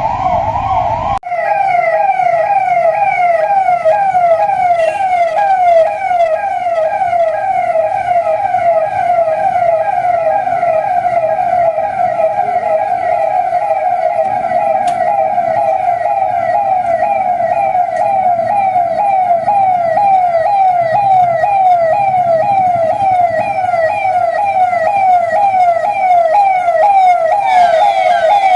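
Police vehicle siren in a fast yelp: a loud tone falling in pitch over and over, several times a second, with a brief break about a second in.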